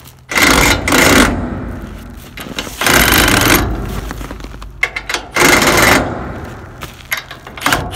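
Cordless impact wrench hammering a 3/4-inch nut up a threaded rod, jacking a heavy steel caster plate up against a shipping container corner. It runs in three bursts of about a second each: right at the start, about three seconds in, and about five and a half seconds in.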